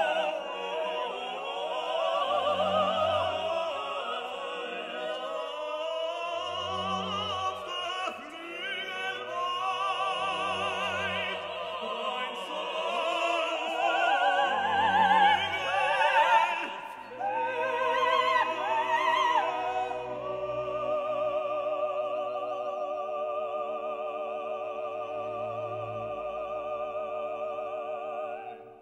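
Background music: operatic singing with strong vibrato over orchestral accompaniment, with a low bass note recurring every few seconds. About two-thirds of the way through, the voice settles into long held notes, and the music fades out at the very end.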